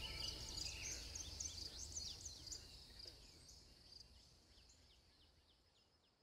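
Faint, rapid high chirps, as of small birds, over a low hum, fading steadily down to near silence.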